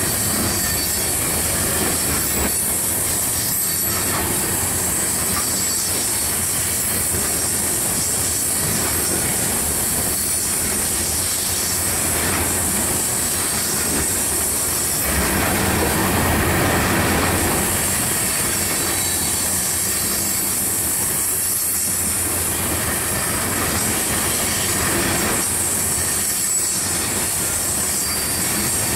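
Coal cars of a freight train rolling past close by on a curve: a steady rumble of steel wheels on rail with a continuous high-pitched wheel squeal. It swells slightly about halfway through.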